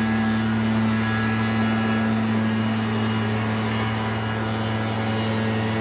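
Freshly rebuilt 427 big-block V8 with headers idling steadily, a constant low hum.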